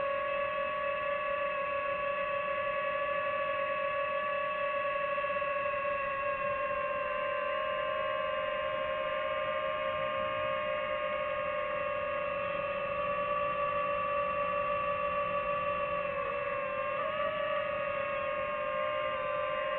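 DJI FPV drone's electric motors and propellers whining at a steady pitch in cruise, the pitch dipping and wavering briefly about sixteen seconds in as the throttle changes.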